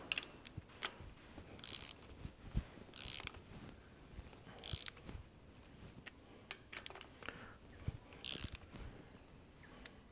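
Socket ratchet wrench clicking in four short bursts as it is swung back and forth to run down hub bolts, with scattered metal clicks and taps from the socket and bolts. The bolts are being drawn in snug, which loads the hub's tapered roller bearings.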